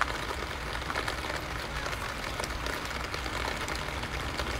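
Steady hiss of light rain with a low rumble underneath, and faint wet clicks of someone chewing octopus close to the microphone.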